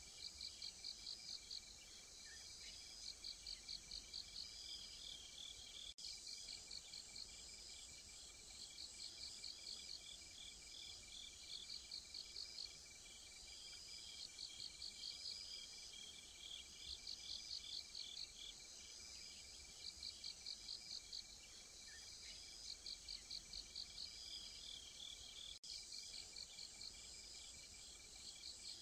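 Insects chirping: short trains of rapid high chirps recurring every second or two, over a steady thin high trill.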